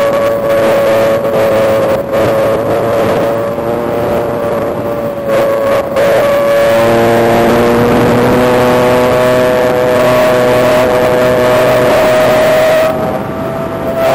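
Electric brushless motor and big five-blade propeller of an E-flite Spitfire Mk XIV 1.2m foam RC plane whining steadily in flight, heard from on board. The pitch dips briefly a few times in the first half, slowly climbs as the throttle rises, and eases off near the end.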